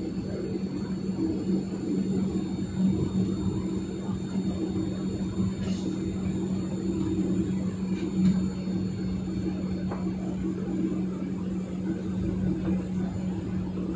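Cabin noise of a Boeing 737-900ER taxiing, heard inside the cabin over the wing: its CFM56-7B engines running at idle, a steady low drone with a constant hum, and a few faint ticks.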